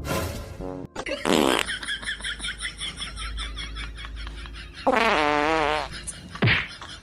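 Fart-like sounds: a short falling blat about a second in, a longer wavering one about five seconds in, and a brief falling one just after.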